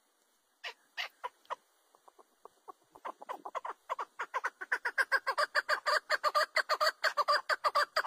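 Chukar partridge calling: a few spaced notes at first, then a rapid run of repeated clucking notes, about six a second, that builds and grows loud from about three seconds in.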